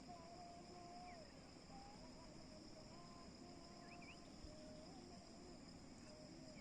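Faint steady high-pitched drone of insects, with faint wavering tones underneath and a couple of short rising chirps about four seconds in.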